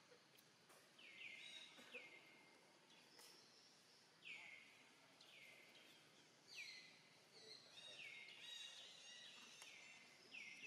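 A bird faintly calling over and over with short whistled notes that slide downward, about one a second, coming closer together toward the end.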